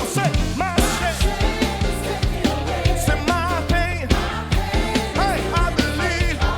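A church choir singing an upbeat praise song with a live band, with bass and steady drum beats under the voices.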